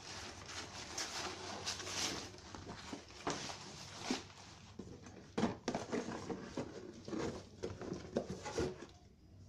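Handling noise: nylon backpack fabric rustling as a plastic water bottle is moved into its side pocket, and a cardboard box being lifted, in irregular rustles and light knocks that stop shortly before the end.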